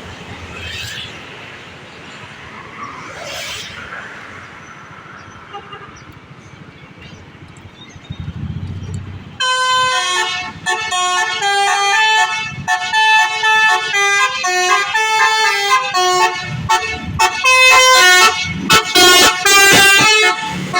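A bus's Basuri 'telolet' multi-trumpet musical horn starts abruptly about nine seconds in and plays a quick tune of short, changing notes. Before it there is only low traffic and engine rumble.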